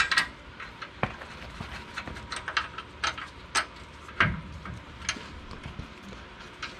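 Scattered light metal clicks and taps as a washer and nut are put onto a bolt by hand, with a duller knock about four seconds in.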